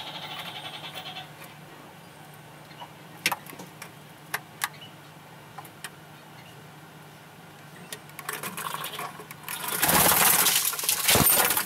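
Pet budgerigars in their cage: a few sharp clicks from beaks or feet on the perches over a low steady hum, then wing flapping that builds from about eight seconds in and is loudest near the end as a bird leaves its perch.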